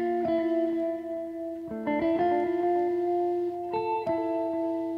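Background music: a guitar playing ringing, sustained chords that change about every two seconds.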